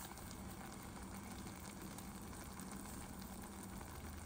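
Thick ground coconut masala paste faintly sizzling and bubbling in a pan of hot coconut oil, a soft, steady crackle.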